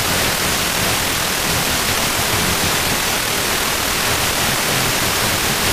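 Steady hiss of a software-defined radio's wideband FM demodulator tuned between stations, where it receives only noise.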